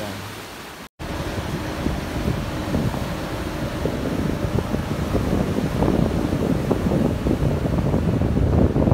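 Strong wind buffeting the microphone on the deck of a ship under way, over the rush of the ship's wake on the sea. There is a brief dropout about a second in.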